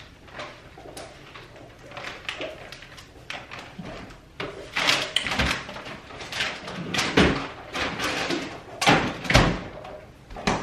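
Kitchen handling noise around a refrigerator: its door opened and things moved about inside. Scattered clicks and knocks, then several heavy thuds in the second half.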